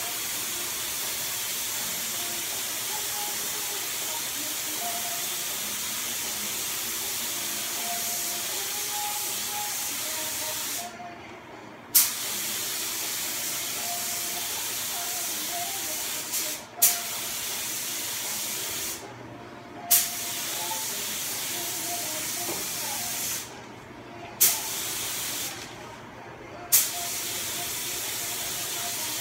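Compressed-air paint spray gun hissing steadily as paint is sprayed. In the second half the trigger is let go several times for a second or so, and each time the gun starts again with a sharp burst of air.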